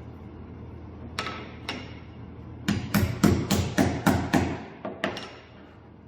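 A hammer tapping wooden wheels onto a wooden dowel axle: two light taps, then a quick run of about eight strikes around three seconds in, then two more.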